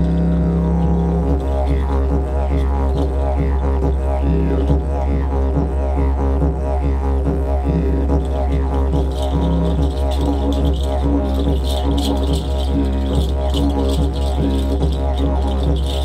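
Didgeridoo playing a continuous low drone with a rhythmic pulse and sweeping overtones. From about nine seconds in, light hand percussion plays along with it.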